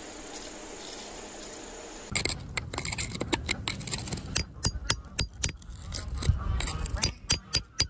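Steady faint hiss for about two seconds, then a metal digging tool scraping and clicking in gritty soil and against a crystal cluster: a quick, uneven run of sharp ticks and scrapes with a low rumble of handling under them.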